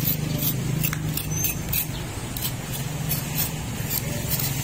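Roasting lechon pig skin crackling, with irregular sharp pops a few times a second as the skin crisps near the end of cooking, over a steady low hum.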